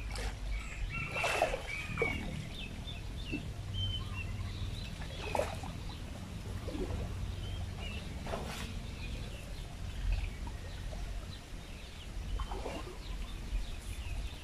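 Small birds chirping, with a few brief water sounds about every three to four seconds as a man wades through pond water hauling in a cast net.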